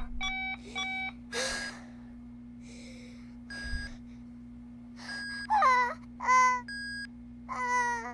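An animated cat whimpering, with three short, wavering meow-like cries in the second half. Short electronic beeps come before them and between them.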